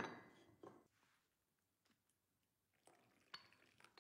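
A porcelain teacup set down on its saucer with a clink at the start, then, in the last second, tea poured from a teapot into the cup with a few small clinks. Faint overall.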